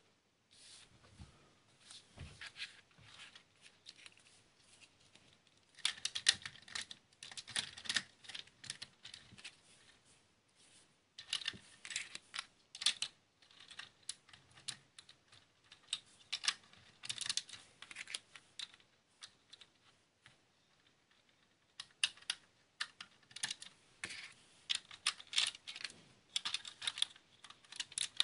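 Plastic LEGO bricks clicking and clattering as the roof plates of a brick-built model vehicle are handled, lifted and pressed back on. The sound comes in clusters of rapid small clicks with quieter gaps between them.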